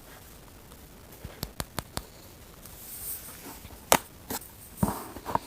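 Small objects being handled at close range: four sharp clicks in quick succession, a brief hiss-like rustle, a single loud click, then a cluster of duller knocks and taps near the end.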